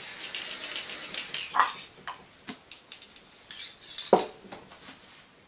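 Plastic bag rustling, then a few scattered metallic clinks as spare parts (a spare drive chain, a spark plug) and small tools are handled and packed.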